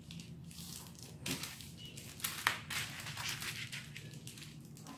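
A sheet of non-stick baking paper being folded and creased by hand on a table: irregular crinkling and rustling, with a few louder crinkles.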